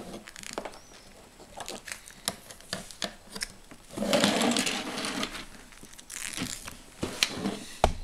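Handling noise of plastic Lego bricks and a paper sticker sheet: scattered light clicks and taps of pieces on the table, with a denser stretch of rustling about halfway through.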